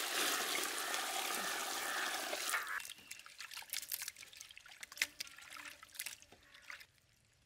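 Water poured over cut chicken pieces in a vessel to wash them, a steady rush for about three seconds that stops suddenly; irregular splashes and clicks of the pieces being worked by hand in the water follow, dying away near the end.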